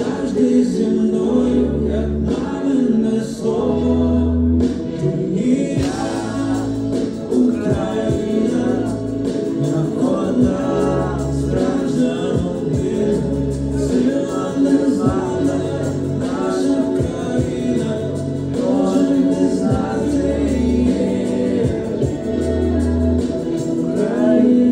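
A young man singing a slow song into a microphone over a backing track, with a low bass note repeating about every two seconds under held chords; the voice comes in strongly about six seconds in.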